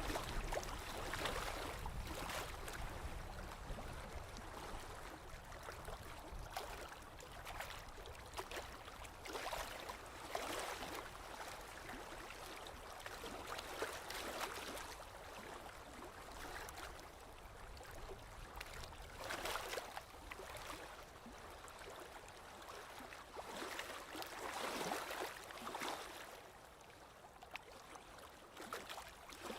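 Small waves lapping on a lakeshore: a steady wash of water broken by a soft splash every few seconds.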